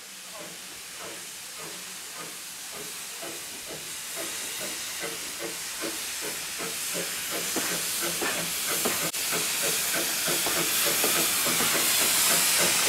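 Steam locomotive working a train, its exhaust chuffing in a steady rhythm over a hiss of steam, growing steadily louder.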